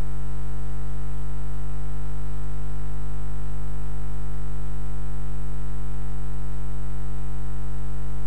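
Steady electrical mains hum from the sound system: a constant low buzz with many overtones.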